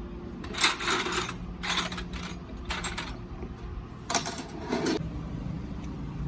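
Four short bursts of metallic rattling over a steady low hum.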